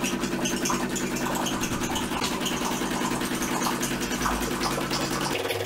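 DeLonghi Dedica espresso machine's vibration pump buzzing steadily while it pushes hot water out through the wand into a plastic measuring jug. The buzz changes pitch abruptly near the end.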